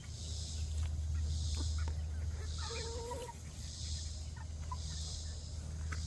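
A chicken gives one short, wavering low call about halfway through. Insects drone high up, swelling about once a second, over a steady low rumble.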